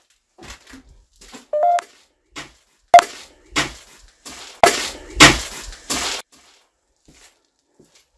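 Clattering knocks and bangs of things being handled and moved, a handful of loud hard knocks between about three and six seconds in, some with a short metallic ring, and a brief squeak about a second and a half in.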